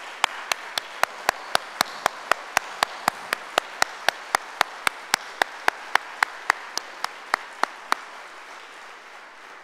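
Audience applauding, with one person's claps loud and close to the microphone at a steady four or so a second. The close claps stop about eight seconds in and the rest of the applause dies away.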